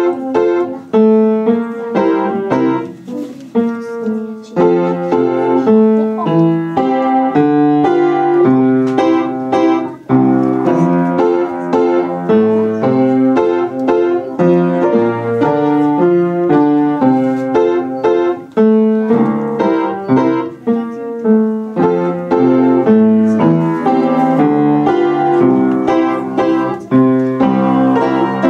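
Upright piano played by a child: a continuous flow of notes, with a brief dip in loudness about ten seconds in.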